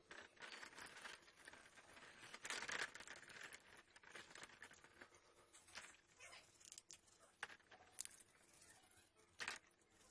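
Faint scratching and rustling of handwork on a small model truck, loudest about two and a half seconds in, with a few sharp clicks in the second half.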